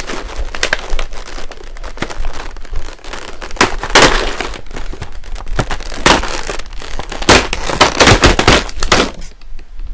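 Doll packaging being handled as the doll pieces are pulled free: a loud, busy run of sharp cracks and crinkling. It is loudest in two spells in the middle and later part, then eases off near the end.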